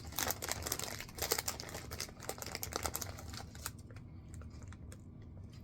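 Close-up crunching of Pop-Tarts Crunchy Poppers, small crisp snack bites, being chewed: quick, dense crackling clicks that thin out after about three and a half seconds.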